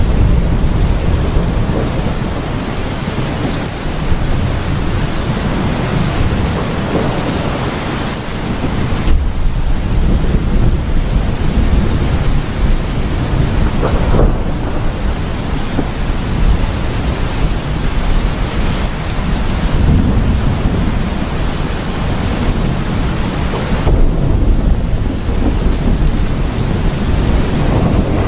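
Heavy rain pouring steadily on surfaces while thunder rumbles low and long, swelling and easing several times.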